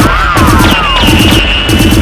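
Dubbed-in movie-style gunfire effects over action music: repeated falling, zapping glides with rapid low rattling bursts, and a steady high tone for about a second in the middle.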